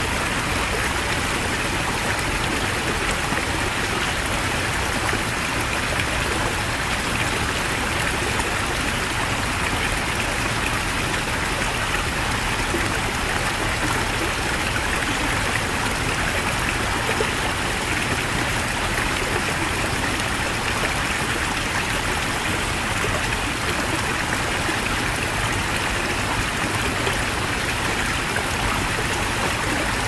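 Heavy mountain stream running, a steady, unbroken rush of water.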